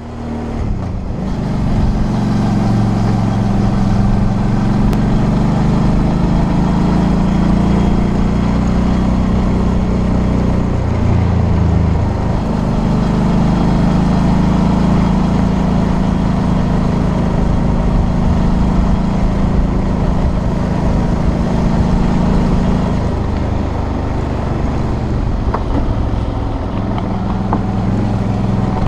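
Suzuki V-Strom 650's V-twin engine running steadily under way, heard from a camera on the bike over an even rush of wind and road noise. The engine note dips and changes pitch about twelve seconds in, and settles lower after about 23 seconds.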